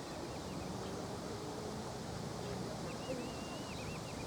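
Wind blowing over the river as a steady rushing noise, with a few short high bird chirps at the start and a quick run of them from about three seconds in.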